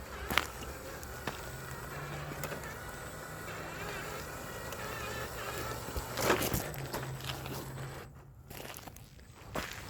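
Electric motor of a JD Models F-150 (Desert Runner) RC truck whining as it drives, with its tyres crunching and clicking over the ground. The sound drops off briefly near the end.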